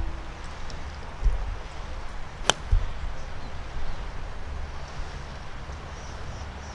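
A golf iron striking the ball on a tee shot: one crisp, sharp click about two and a half seconds in.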